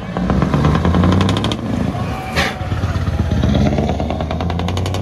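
Scania V8 truck engine running loud as the truck pulls away, its exhaust beat clear and rapid. A short, sharp sound cuts through about two and a half seconds in.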